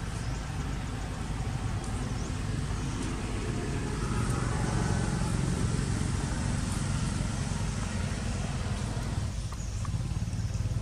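Low rumble of a motor vehicle running nearby, building up through the middle and dropping off near the end.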